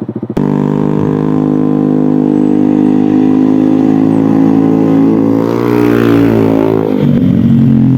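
Yamaha Aerox scooter engine running through an Eternal aftermarket racing exhaust, cutting in abruptly about half a second in with a steady note, then briefly revving up near six seconds and dropping to a lower note about seven seconds in.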